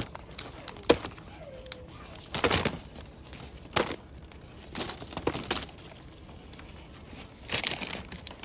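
Short, irregular rustling and crinkling bursts, several seconds apart: jujube branches, leaves and the bags over the fruit being handled while picking.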